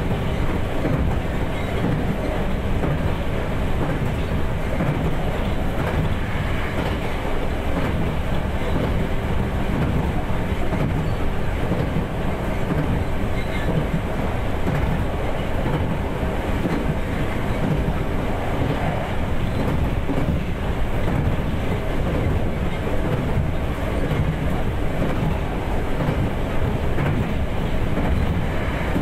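JR 211 series electric multiple unit running along the line, heard from inside the car: a steady rumble of wheels on rail together with the hum of its MT61 traction motors with outer cooling fans.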